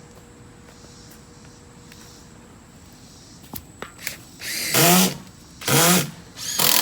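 Power drill driving screws into dock boards in three short runs, each spinning up with a rising whine, the last cut off near the end.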